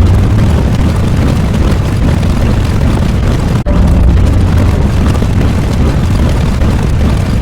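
Loud, continuous rumbling noise sound effect, heaviest in the low end, with a brief break about three and a half seconds in where it starts over.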